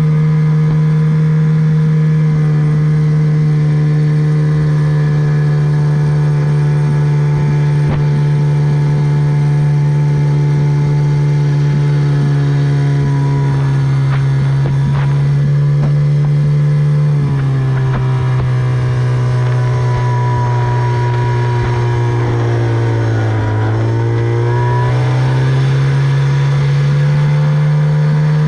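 Tohatsu 25 outboard motor running under way at a steady speed. About two-thirds of the way through, its note drops, sinks lowest a few seconds later, then climbs back up near the end.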